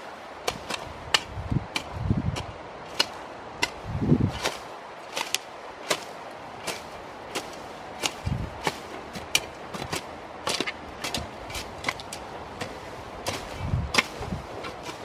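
Irregular sharp knocks and clicks, about one or two a second, with a few duller low thuds among them.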